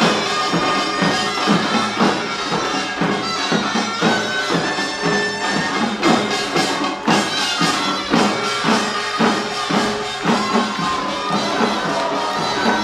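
Korean pungmul band playing pangut: a taepyeongso, the nasal double-reed shawm, carries a wavering melody over dense, driving drum and gong strokes.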